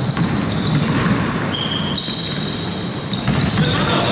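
Basketball game on an indoor court: a ball bouncing and sneakers squeaking in several high, held squeals, most of them in the second half, over the echoing din of the hall.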